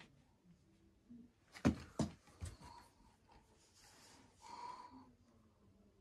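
A quiet room with three sharp knocks close together about a second and a half in. A couple of seconds of rustling follow.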